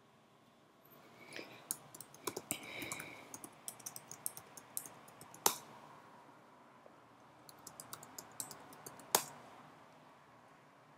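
Typing on a computer keyboard in two quick runs of keystrokes, each ending in one louder, sharper key press.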